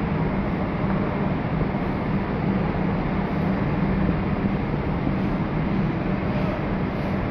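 Steady drone of docked cruise ships' machinery and ventilation: a constant low hum under a broad, even rush of noise.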